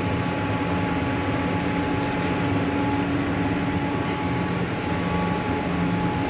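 Steady machinery hum with a few held tones, unchanging throughout: electric motors and fans running in a laminating machine workshop.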